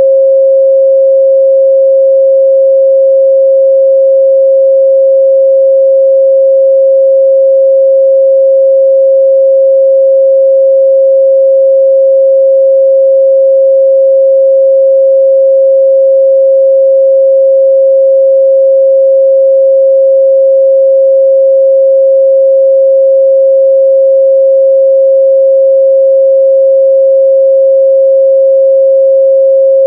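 A steady 538 Hz sine-wave test tone, one pure pitch held unchanged at constant loudness.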